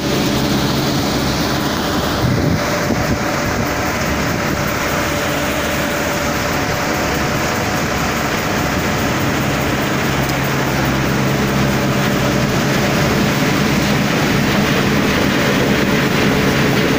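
Tractor-driven thresher running steadily: the tractor's diesel engine hums with the machine's spinning drum and blower, over a dense rushing of threshed material pouring through.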